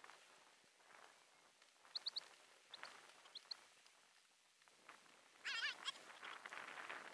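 Alaskan husky sled dogs whining and yipping: a few short, high squeaks between about two and three and a half seconds in, then a louder wavering whine a little after five seconds, over a faint hiss.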